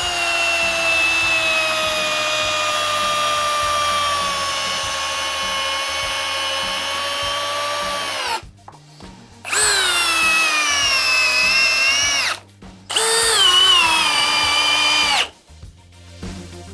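Ryobi ONE+ HP brushless hammer drill driving an 8-inch GRK screw into a stack of wood sheets for about nine seconds, its motor whine slowly sagging in pitch under the load. It is followed by two much shorter runs of about two and a half and two seconds: the Ridgid High Torque and the Milwaukee M18 FUEL hammer drills driving the same screw, each dipping in pitch as it loads up.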